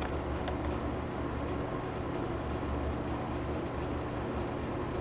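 A steady low hum, like machinery running in a small room, with a faint click about half a second in.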